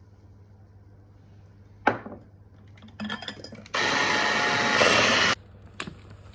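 Kitchen baking sounds: a sharp knock, a brief clatter, then a loud steady rushing noise lasting about a second and a half that cuts off suddenly, followed by a light tap.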